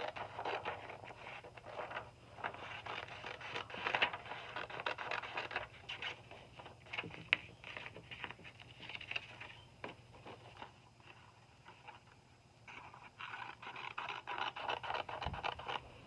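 Scissors cutting through a sheet of paper along its folds: a run of crisp snipping and scraping paper sounds, with a quieter stretch a little past the middle before the cutting starts again.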